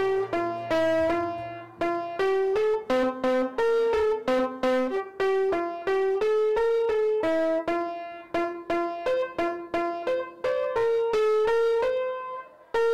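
Piano played slowly, a simple melody picked out mostly one note at a time in the middle register, with a brief pause near the end.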